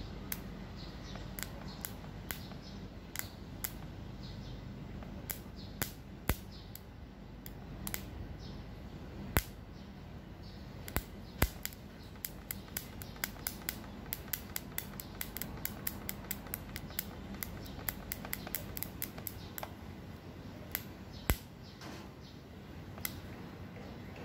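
Small sharp clicks and ticks from hands handling and twisting stripped copper wire ends onto a wire-wound motor rotor, scattered at first, then coming quickly, about three or four a second, through the middle. A faint steady hum runs underneath.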